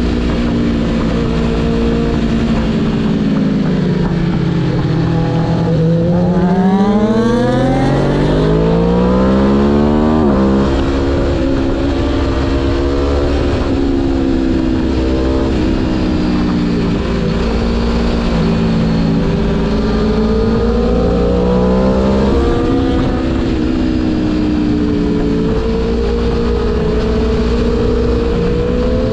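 Aprilia Tuono V4 1100 Factory's V4 engine accelerating hard and backing off through a run of bends. About a third of the way in it revs up for several seconds and then drops sharply on an upshift; after that the revs rise and fall repeatedly.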